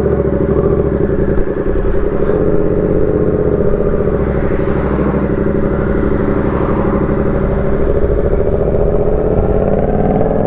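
Yamaha MT-07 parallel-twin engine breathing through an aftermarket SC Project full exhaust, running at steady low revs as the bike rolls along, with the revs rising slightly near the end. The exhaust note is very loud, so loud it is heard inside the helmet, and harsh rather than pleasant.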